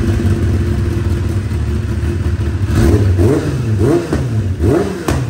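Kawasaki ZX-10RR inline-four idling loudly through an aftermarket Akrapovic carbon slip-on exhaust, then revved in four or five quick throttle blips in the second half.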